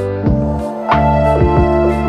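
Background music: sustained keyboard-like chords over a steady beat.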